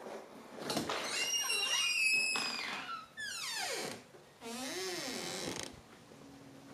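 A hinged French patio door is unlatched and swung open, its hinges squealing and creaking in several long gliding tones, one of them falling steeply.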